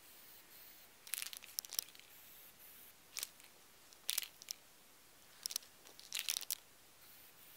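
Aerosol can of black PlastiDip spraying in about five short hissing bursts, each under a second, as a second coat goes onto a wheel.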